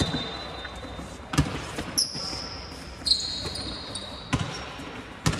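A basketball thumping on the gym court three separate times, with long high-pitched squeaks in between.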